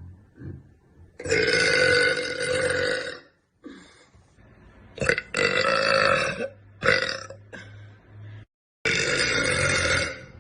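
A woman belching: three long burps of one to two seconds each, with a few short burps between them and abrupt silent gaps where the clips are cut together.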